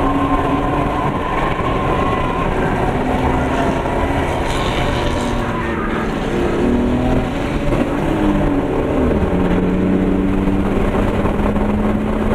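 A 2001 BMW 325i's straight-six engine running hard on a race track, heard from inside the cabin over loud road and wind noise. Its pitch shifts and glides several times in the middle, then holds steady near the end.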